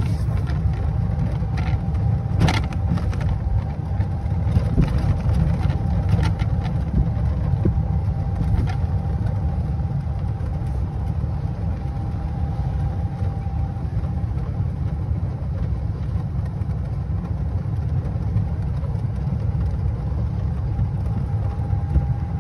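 A motor vehicle running: a steady low rumble with a faint steady whine above it and a few scattered clicks.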